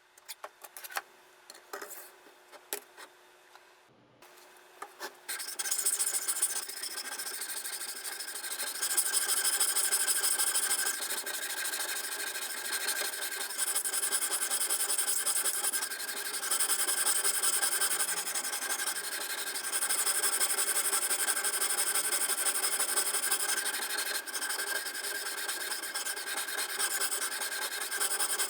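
A few clicks and knocks, then from about five seconds in a steady rasping of a diamond sharpening bar stroked along a steel knife blade in a guided sharpener, swelling and easing in long passes.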